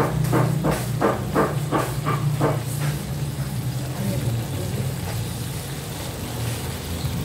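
A dog barking repeatedly, about three barks a second, stopping about two and a half seconds in, over a steady low hum.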